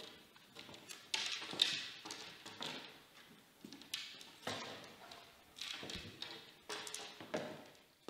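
Thin stick legs of a walking kinetic sculpture tapping and scraping on a wooden parquet floor: a string of irregular light knocks, about eight in all, each with a short ring in the room.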